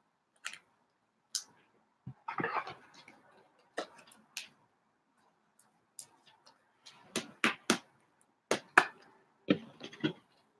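Trading cards handled and sorted by hand: irregular sharp clicks, a short rustle about two and a half seconds in, and a quicker run of clicks in the last few seconds.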